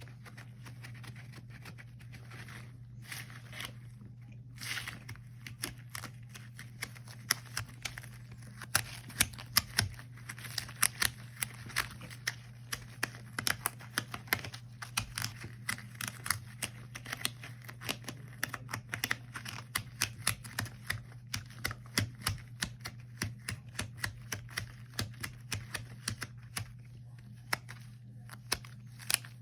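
Rubber gloves handled close to the microphone, giving a few soft swishes and then a fast, irregular run of sharp sticky clicks and crackles, several a second. A steady low hum runs underneath.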